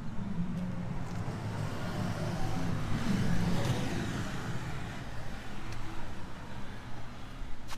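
A passing engine: a low motor hum that grows louder to a peak a little past halfway, then fades.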